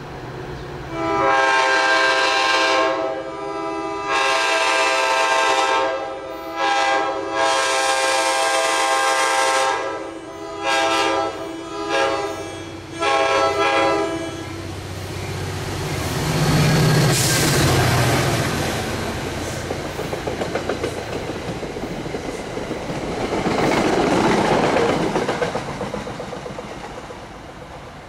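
New Jersey Transit F40PH-2CAT diesel locomotive's chime air horn sounding a series of long and short blasts, about eight in all, over the first half. Then the train passes close by, its diesel engine and wheels clacking over the rail joints, and the noise fades as it moves away.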